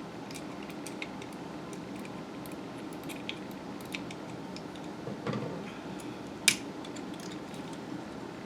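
Scattered light plastic clicks and ticks from handling the opened mouse and small tools, with a soft bump about five seconds in and one sharp click about six and a half seconds in, over a steady low hum.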